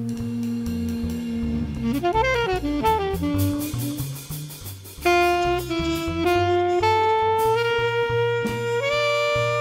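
Jazz background music: a saxophone lead plays held notes and a quick run about two seconds in, over bass and drums.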